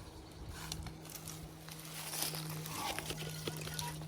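Metal detector's steady low hum coming from headphones pulled off the ears, with faint rustling as the coil sweeps over the ground and a short high beep near the end, the start of its target tones over a deep signal.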